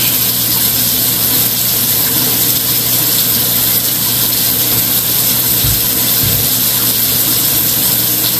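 Steady rushing noise over a low steady hum, with two brief low thumps about six seconds in.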